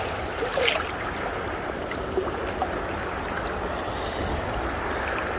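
Creek water rushing steadily over rocks in the shallows, with one brief sharp noise under a second in.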